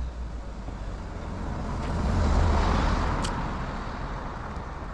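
A car passing on the road; its tyre and engine noise swells to a peak about halfway through and then fades.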